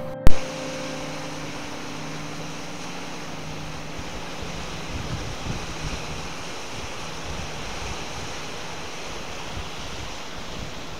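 Lake Erie waves washing onto a sandy beach under strong wind that buffets the microphone, a steady rushing noise with small gusts. It opens with a single sharp click, the loudest moment, while the tail of background music fades out.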